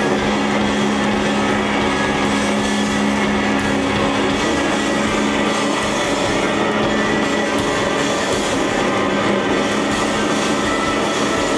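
Live band playing a loud, sustained drone of held guitar and keyboard chords with no clear beat. A low held note drops away about halfway through.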